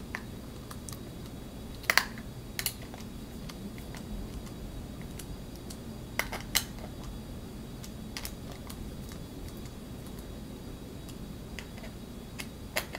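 Hand screwdriver tightening metal screws into 3D-printed plastic parts: a handful of small, sharp clicks and clinks scattered through, as the tool seats and turns in the screw heads and the parts knock together.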